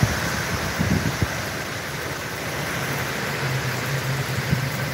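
Hurricane wind and rain: a steady rushing noise with low thumps from gusts striking the microphone about a second in. A low steady hum sits beneath it later on.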